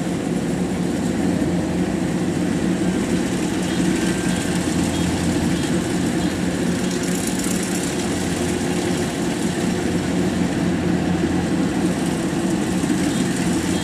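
Kubota DC93 rice combine harvester running steadily as it cuts and threshes rice, a constant even engine-and-machinery hum with no change in pace.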